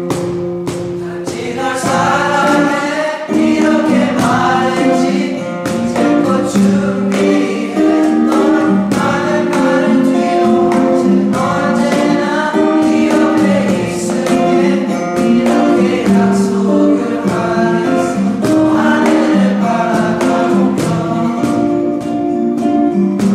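A choir singing a song together over a strummed guitar accompaniment.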